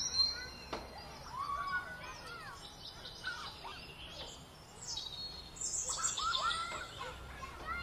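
Several birds chirping and singing in short, overlapping calls, busiest near the start and again about six seconds in.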